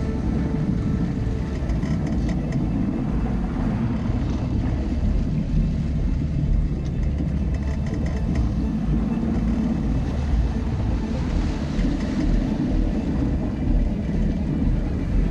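Wind buffeting the microphone in a steady low rumble, with water rushing along the hull of a sailboat moving through choppy water.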